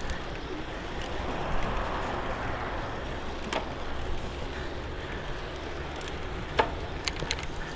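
Wind rushing over the bike-mounted camera's microphone and tyres rolling on pavement while a bicycle is ridden along, with a few sharp clicks and rattles from the bike, the loudest about six and a half seconds in.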